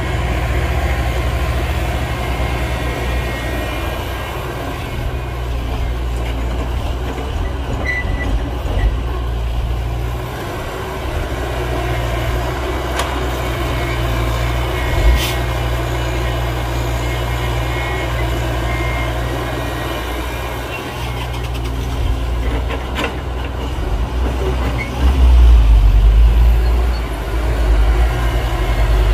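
Heavy diesel earthmoving machinery running: a steady low engine drone with a few sharp clanks, swelling louder as the engine works harder about 25 seconds in.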